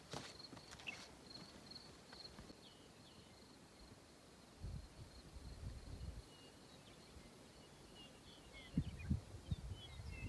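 Faint open-country ambience: a high, evenly pulsing trill runs through most of it, with a few soft footstep scuffs in the first second. Wind buffets the microphone twice, and short bird chirps come in during the last few seconds.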